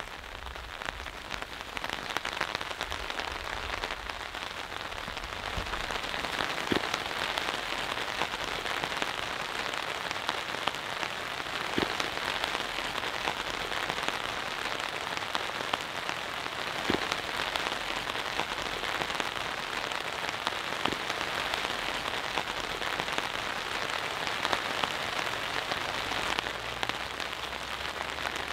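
Steady rain falling, a dense patter of drops, with a few heavier drops ticking out now and then.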